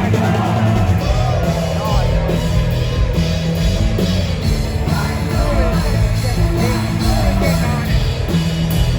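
Rock music with a singing voice, a bass line and drums, playing loudly and steadily.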